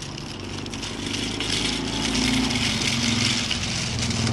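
A car engine running steadily, getting louder from about a second in.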